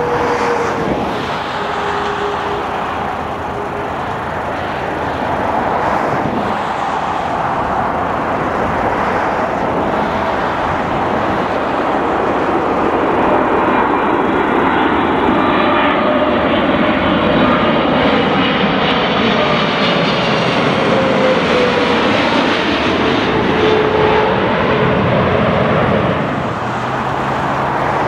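Boeing 777-300ER airliner's GE90 turbofan engines passing low overhead on final approach to land: a broad jet rush that swells as it nears, with a whining tone that falls in pitch as it goes by. The sound drops off near the end.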